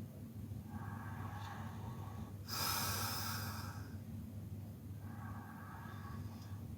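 A man snoring in his sleep: slow, noisy breaths, one about every two seconds, with a louder, hissier breath near the middle, over a steady low hum.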